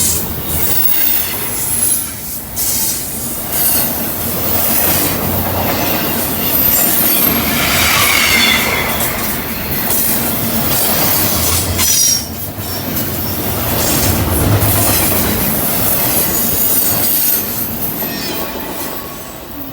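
A long train rolling past at close range: a loud, continuous rumble of wagons with high, wavering squeals of wheels on the rails. It starts to fade near the end.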